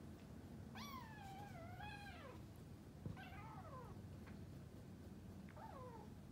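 Kitten meowing three times: a long, wavering meow, then a shorter falling one, then a brief one near the end. A single tap sounds about three seconds in.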